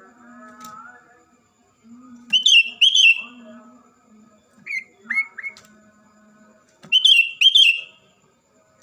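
Bulbuls (yellow-vented and sooty-headed) singing: three bursts of loud, quick, bubbly phrases about two, five and seven seconds in, with fainter lower calls between them.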